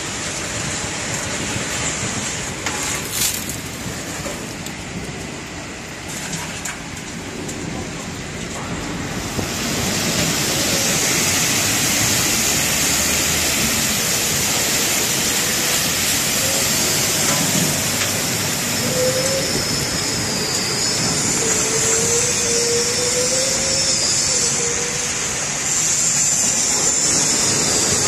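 Truck wheel-washing machine running: a steady rush of water spray and machinery noise that grows louder about ten seconds in. A faint wavering whine comes and goes in the second half.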